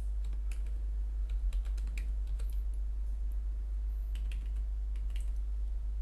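Typing on a computer keyboard: irregular, scattered keystrokes as a web address is entered, over a steady low electrical hum.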